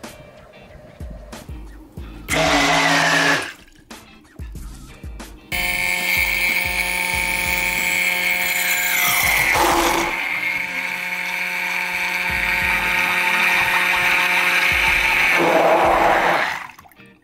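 Beko 750 W hand blender motor spinning its stainless steel blade in a beaker of water, a steady whine over churning water. A short burst comes about two seconds in, then a long run from about five seconds in that slows briefly near ten seconds and stops just before the end.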